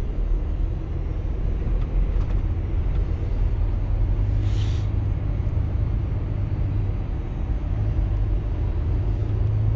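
Truck's diesel engine running at low revs, heard from inside the cab as the truck creeps forward, with one short hiss about halfway through.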